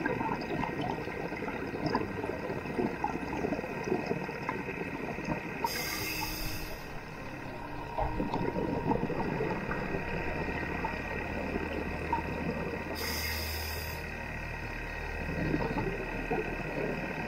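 Underwater ambience at about 30 m: a steady drone of motorboat engines and propellers carried through the water, over a dense faint crackle. Two short hisses come about seven seconds apart, from a scuba diver's regulator as the diver breathes in.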